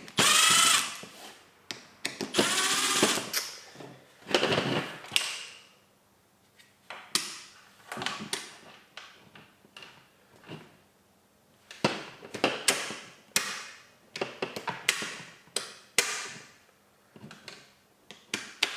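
A cordless electric screwdriver whirs in a few short bursts, undoing the screws of a gel blaster gearbox shell. Scattered clicks and knocks follow as the small gearbox parts are handled.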